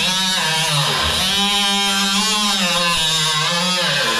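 Compact cordless Milwaukee FUEL cut-off tool cutting through furnace sheet-metal with an abrasive wheel: a steady high motor whine over a hissing grind, its pitch wavering as the wheel bites into the metal.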